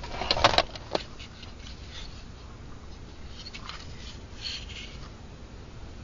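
A quick run of sharp clicks and clunks about half a second in, then faint scattered clicks and rustling over a low steady rumble: the pull-out block of an air-conditioner's fused disconnect being pulled and handled.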